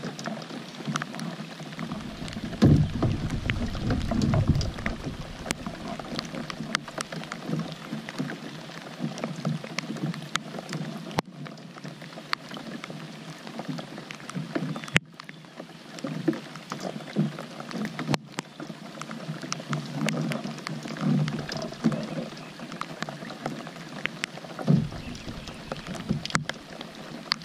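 Rain falling on the lake and the kayak, with many sharp ticks of drops landing close to the microphone. A low rumble comes in a couple of seconds in and again near the end.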